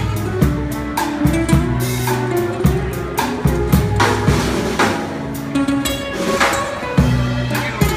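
Live acoustic band playing: acoustic guitars strumming over a drum kit keeping a steady beat.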